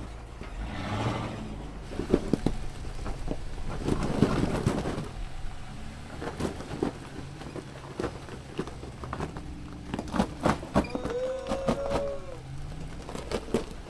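Jeep Gladiator crawling over rock: the engine runs low and steady under repeated sharp knocks and cracks from the tyres and underbody on the stone. Louder swells come about a second and four seconds in.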